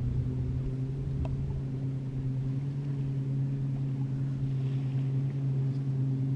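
A boat motor running with a steady low hum.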